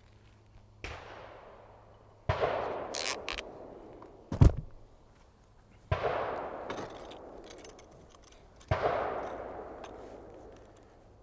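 Gunshots at an outdoor range, about four of them a few seconds apart, each with a long echoing tail. A sharp thump about four and a half seconds in is the loudest sound.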